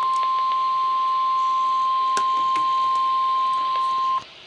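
NOAA Weather Radio warning alarm tone, a single steady 1050 Hz beep held continuously and cutting off sharply near the end, announcing that a weather warning follows. Faint static crackle lies underneath.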